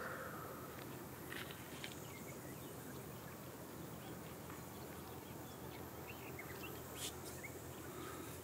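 Faint outdoor ambience: a steady hiss with a few short bird chirps and a couple of sharp clicks, the loudest about seven seconds in.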